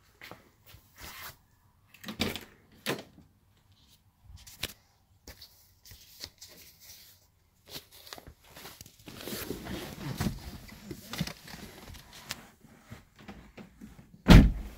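Clicks and bumps of a 1988 Toyota Celica's driver door being opened and someone settling into the seat, with rustling in the middle, then a single loud thunk near the end as the door shuts.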